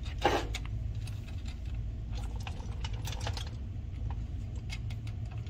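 Small metallic clicks and taps as steel bolts and nuts are handled and a nut is started onto a bolt by hand at a scooter's kickstand bracket, with one louder click just after the start. A low steady hum runs underneath.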